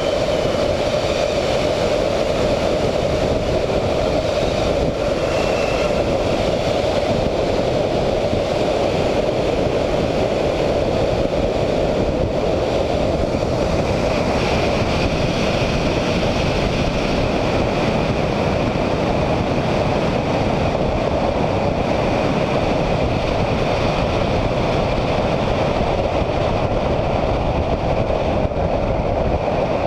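Steady rush of wind on a wingtip-mounted camera, mixed with the Siemens-Halske Sh 14A seven-cylinder radial engine and propeller of a VL Viima II biplane, as the plane comes in low and runs out on a grass strip.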